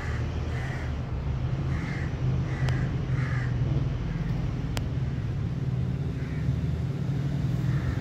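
Crows cawing several times in the background, a string of short calls in the first few seconds and a couple more later, over a steady low rumble.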